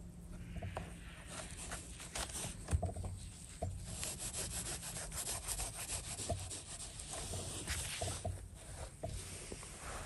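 Rustling and scraping in forest leaf litter as mushrooms are picked and handled, full of small crackles and snaps with a few soft knocks.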